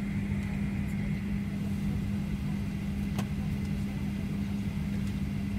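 Steady cabin noise of a Boeing 737-900 on the ground: a constant low drone over a rumble, with a faint click a little over three seconds in.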